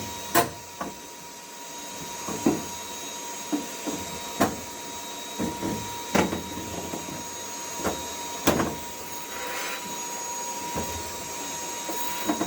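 Dyson vacuum running with a steady high whine, its skinny hose attachment sucking lint out of a dryer's lint-filter slot, with irregular sharp knocks and clatters every second or two.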